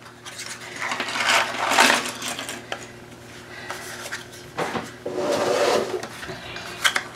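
Jigsaw puzzle pieces being tipped out and handled on a table: small pieces clattering and sliding, with rustling, in two bursts about a second in and near five seconds in, and scattered clicks between.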